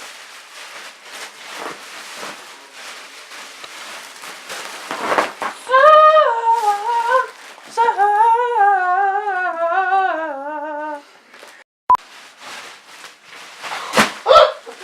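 A person hums a wobbling, wordless tune for about five seconds, the pitch drifting down toward the end, after a few seconds of rustling. The humming cuts off suddenly, and a sharp knock follows near the end.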